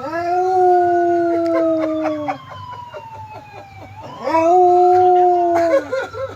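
Mixed-breed dog howling along with a wailing siren: two long howls of about two seconds each, each sagging in pitch as it ends. The siren's slow rise and fall runs beneath them.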